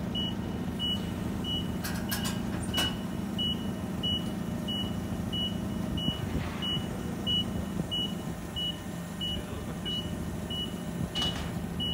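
Forklift reversing-alarm beeping evenly about one and a half times a second over the steady hum of the LPG forklift's engine as it backs up under load, with a couple of sharp knocks about two to three seconds in.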